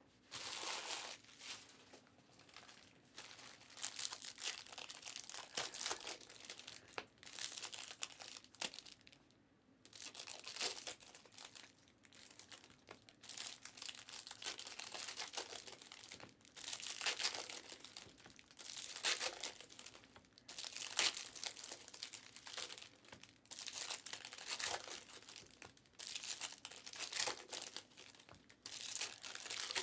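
Shiny foil wrappers of Panini Flux basketball card packs crinkling and tearing as the packs are handled and ripped open, in repeated rustling bursts every second or two.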